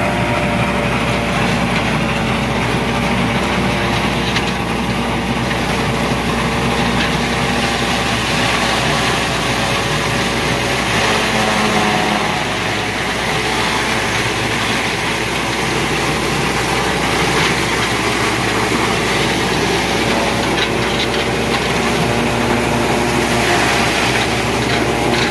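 Tractor engine and a tractor-mounted elephant grass cutter-chopper running steadily under load as it cuts, chops and blows tall grass: a continuous engine hum with a dense hiss of chopping over it.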